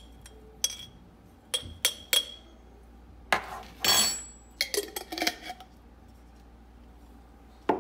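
Glassware and a spoon clinking: a few sharp ringing taps in the first two seconds as shredded coconut is tipped from a small glass jar into a glass blender jar, then longer scrapes and a short clatter of glass being set down on the counter, then quiet.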